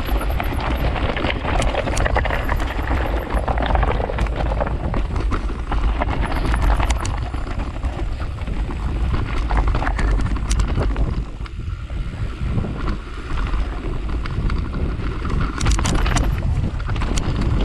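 Mountain bike rattling and clattering over a rocky trail, its tyres crunching on loose stones, with wind rushing over the camera's microphone. Frequent sharp knocks run through it, easing off for a few seconds past the middle.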